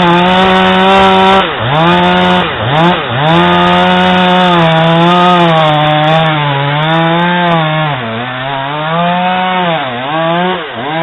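Husqvarna 440 X-Torq 40.9 cc two-stroke chainsaw running at full throttle, its engine note dropping and recovering again and again as the chain bites into wood under load.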